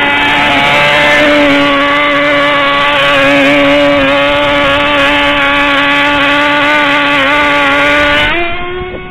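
Cox Tee Dee .051 two-stroke glow engine on a tuned pipe, running flat out with a loud, steady high-pitched whine heard close up from on board the model plane. Near the end it suddenly becomes much fainter and a little higher in pitch.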